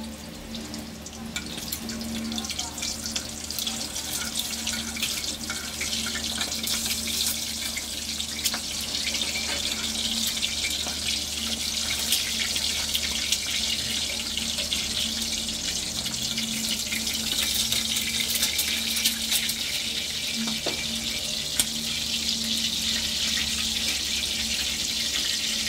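An egg frying in hot oil in a pot: a steady sizzle with scattered crackles and pops that builds up over the first several seconds, then holds.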